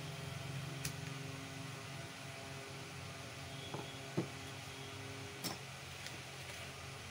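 Screwdrivers and the marble cutter's motor housing being handled on a workbench: a few light knocks and clicks, the loudest about four seconds in, over a steady low hum.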